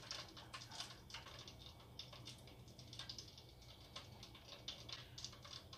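Faint, irregular soft pats and rustles of hands pressing a raw chicken leg into seasoned flour and turning it in a dish of egg and buttermilk.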